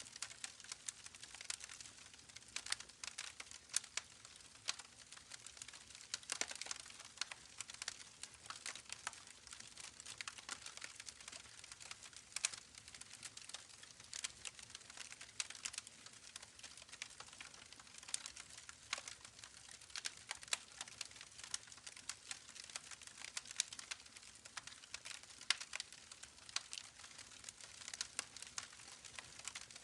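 Campfire crackling: many small, irregular pops and snaps over a faint, steady rushing that fits the babbling creek.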